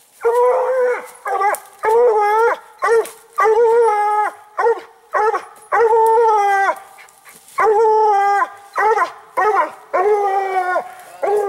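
Coonhound barking treed at the base of a tree, repeated long bawling barks a little more than one a second, each dropping in pitch at the end. She has run a raccoon that has holed up in its den in the tree.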